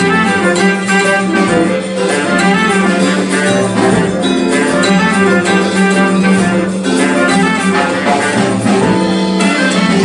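Live band playing an instrumental passage, with plucked strings prominent over a steady low held note.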